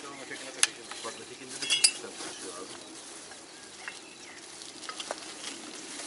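Fishing gear being handled: a sharp click, then a cluster of metallic clinks and rustling near two seconds in, followed by light ticks and crinkling as a plastic bag is rummaged.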